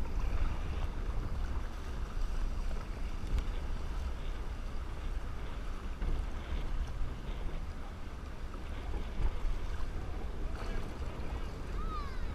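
Wind buffeting an action-camera microphone as a steady low rumble, over water lapping and splashing around a kayak as it is paddled.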